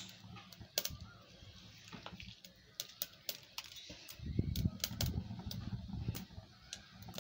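Mustard and cumin seeds spluttering in hot ghee in a kadai: scattered sharp pops and crackles as the tempering fries. A low rumble joins about four seconds in and lasts about two seconds.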